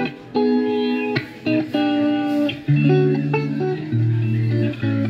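Electric guitar played through a Marshall MG30FX combo amplifier on its clean channel: a series of chords struck one after another, each left to ring, with lower notes coming in during the second half.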